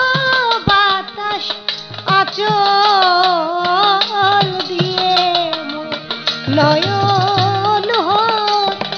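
A woman singing a Bengali Baul song in long, wavering melodic lines, accompanied by a harmonium's held chords and a hand-played barrel drum keeping a steady beat.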